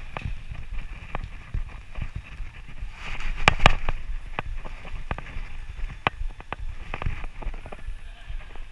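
Bicycle rattling as it rides over a rough street: irregular clicks and knocks over a steady low rumble, with a louder cluster of knocks about three and a half seconds in.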